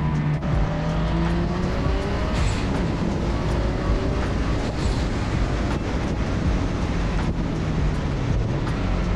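A car's engine running hard on track, its pitch climbing under acceleration and dropping back several times.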